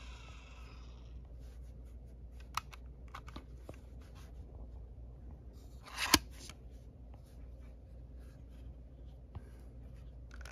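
Clicks and handling noise from a Sony F102 Walkman cassette player as it is worked by hand and its cassette door is opened, with a sharper knock about six seconds in as the loudest sound. The tape playback through the speaker cuts out within the first second.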